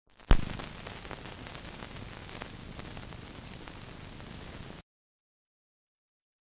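Steady hiss with scattered faint crackles, the noise of a blank film soundtrack. It opens with a sharp pop and cuts off suddenly about five seconds in.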